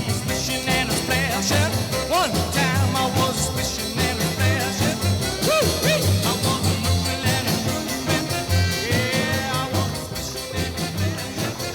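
Rock and roll music with a steady beat: the 1950s song used as the soundtrack, in a stretch without sung words.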